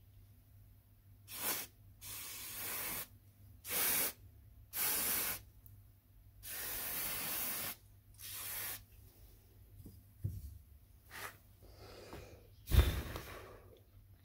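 Aerosol spray can hissing in about six short bursts, the longest about a second, then a single sharp knock near the end.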